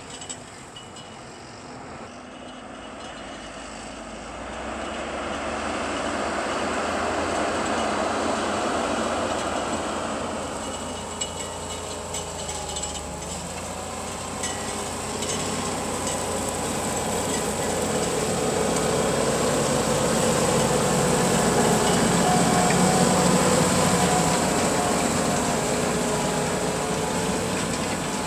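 Fendt 724 tractor's six-cylinder diesel engine running under load while pulling a six-furrow reversible plough. It grows louder as the tractor comes closer, eases off for a few seconds, then swells to its loudest near the end, its pitch shifting up and down.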